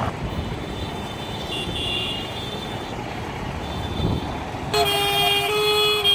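Road traffic noise, then about five seconds in a vehicle horn sounds a run of steady notes that step up and down in pitch, like a musical horn playing a tune.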